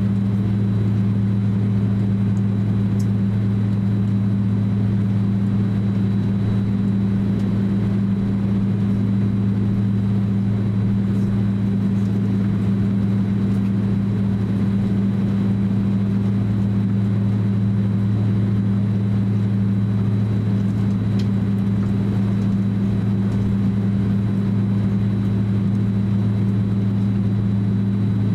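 Cabin noise inside a Boeing 767-300 taxiing, its turbofan engines at taxi power: a steady, even low hum with a faint thin high whine above it.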